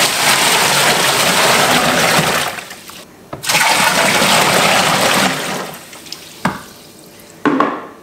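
Water poured from a plastic bucket into the wash tub of a semi-automatic top-loading washing machine, splashing onto the tub floor as the tub fills: two pours of a couple of seconds each with a short break between. Then softer sloshing, with a couple of small knocks near the end.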